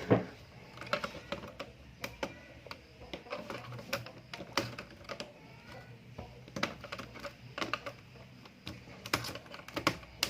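Irregular plastic clicks and taps from a Dell Inspiron N4050 laptop being put back together, its parts pressed and snapped into place.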